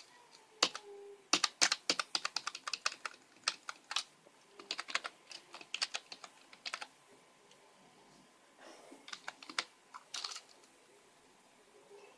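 Computer keyboard keys clicking in quick, irregular runs, with a short lull about seven seconds in before the clicking resumes.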